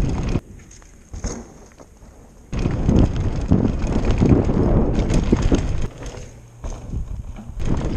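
Mountain bike ridden fast down a dirt forest trail: wind buffeting the microphone over tyre rumble and the rattle of the bike on rough ground. The noise drops away for about two seconds near the start and again for over a second near the end.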